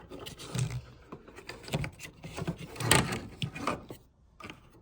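Handling noise from the opened RadioShack Pro-95 scanner being turned over: a run of light plastic clicks, taps and rubs that dies away near the end.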